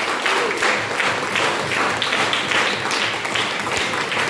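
A small seated group applauding with steady hand clapping.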